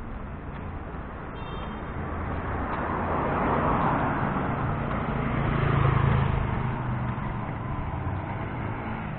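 Road traffic: a motor vehicle's engine and tyre noise swell as it passes close, loudest about six seconds in, then fade.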